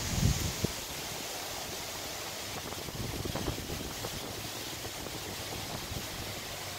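Gusty wind ahead of a storm front, buffeting the microphone with low rumbles, strongest in the first second.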